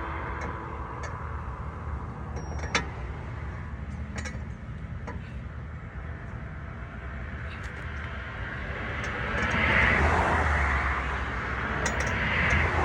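Car noise: a steady low rumble with a sharp click about three seconds in, and a louder wash of noise that swells and fades around ten seconds in and again near the end.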